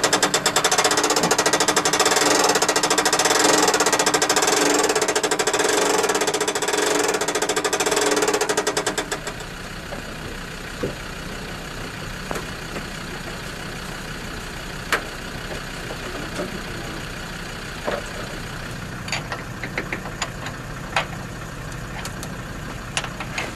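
A loud, fast mechanical rattle for the first nine seconds cuts off abruptly. It leaves a steady low engine hum with occasional sharp metal clicks of hand tools on the engine-mount bolts.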